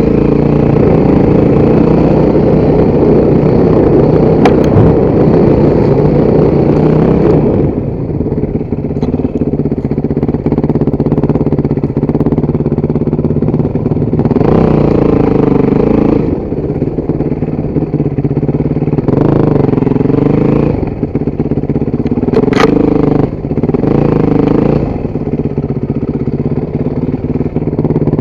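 Motorcycle engine running hard for the first seven seconds or so, then dropping to a steadier run. In the second half it revs up and back down three times, each for a second or two.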